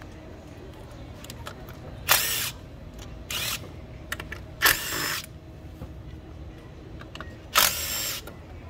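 Cordless power driver running the bolts out of a Daelim Couple 50cc scooter's belt-drive cover, in four short bursts of under a second each, each starting with a sharp crack.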